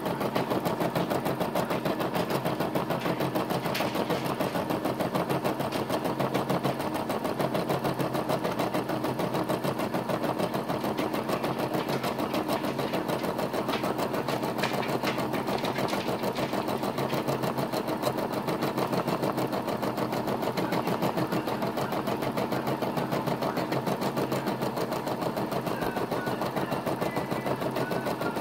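Brother SE425 embroidery machine stitching steadily, a fast, even needle rhythm as it sews out an embroidery design through quilted fabric in the hoop.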